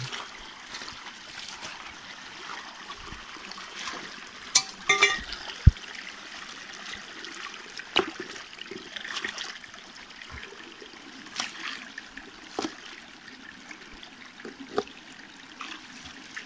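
Shallow water trickling steadily over gravel and stones, with scattered sharp knocks and scrapes of rocks being set in place by hand, about seven of them.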